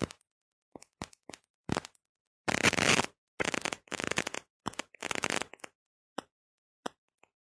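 Radio static cutting in and out: short crackles, then three longer bursts of hiss about half a second to a second long in the middle, then two or three lone clicks near the end, with dead silence between.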